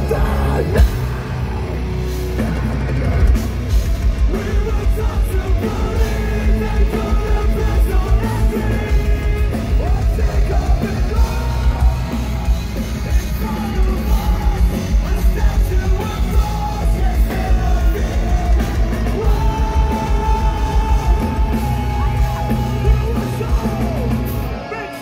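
Live metalcore band playing a song at full volume: distorted guitars, bass and rapid drumming under screamed vocals, with a long held note in the second half.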